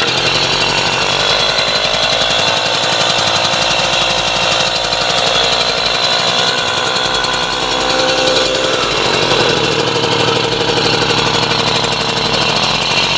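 Puch Maxi moped's two-stroke single-cylinder engine, converted to 70cc, running steadily with a fast, even firing beat just after being kickstarted from cold. Its pitch rises slightly about nine seconds in.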